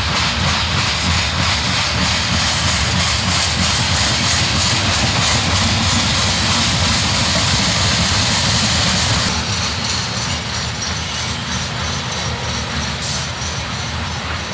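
Train passing at track side, a steady loud rolling noise that eases off somewhat about nine seconds in.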